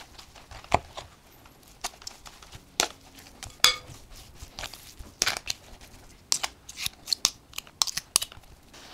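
Two metal forks cutting and folding sticky scone dough in a glass mixing bowl: irregular sharp clicks of the tines striking the glass, coming thicker near the end, between softer tearing sounds of the dough.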